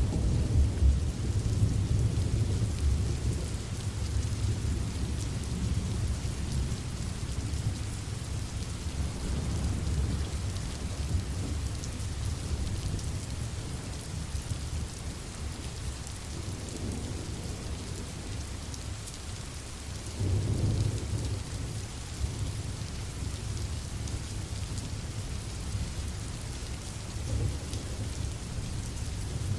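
Steady rain ambience, with low rolling rumbles that are loudest in the first few seconds and swell again about two-thirds of the way through.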